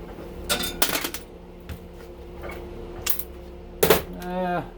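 Small brass breaker parts clinking against metal as they are handled and set down: a cluster of sharp clicks about half a second to a second in, another near three seconds, and a louder one near four.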